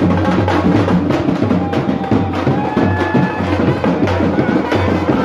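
Music with a steady drum beat and heavy bass.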